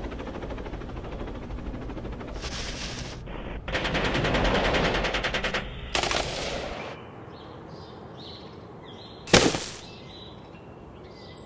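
Toy gun firing a rapid machine-gun rattle in bursts that stop about seven seconds in. About two seconds later comes a single loud clatter of the toy landing in a metal waste bin.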